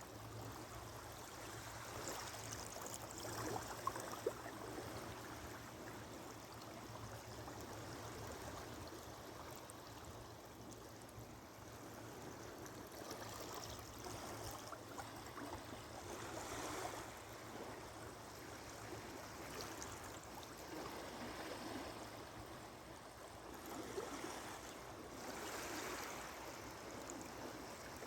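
Small ocean waves lapping and washing over a sandbar: a steady trickling wash that swells now and then. There are two brief clicks about four seconds in.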